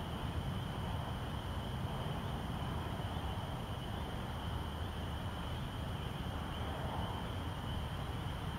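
Steady outdoor evening ambience: a low, even background rumble with a faint, steady high-pitched chorus of calling insects or frogs. No thunder is heard.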